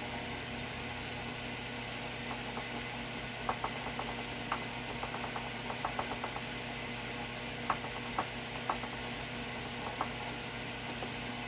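Scattered light clicks and taps of small shotgun-shell reloading parts being handled, over a steady low electrical hum.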